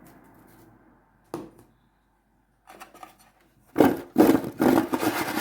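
Seasoned food being mixed: a single light tap about a second in, then near the end a run of quick rubbing, scraping strokes, several a second.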